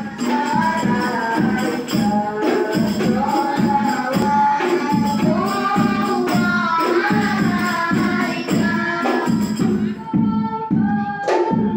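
Two girls singing through microphones over music with a steady percussion beat.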